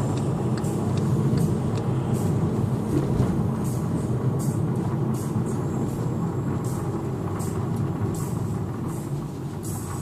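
A moving vehicle heard with a steady low rumble, with short faint high clicks or ticks now and then, easing slightly in level near the end.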